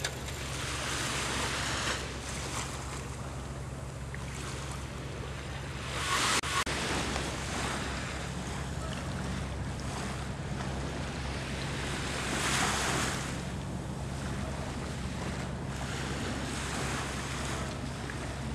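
Wind on the microphone and small waves washing at the shore, a steady rushing that swells louder twice, about six and twelve seconds in, over a low steady hum.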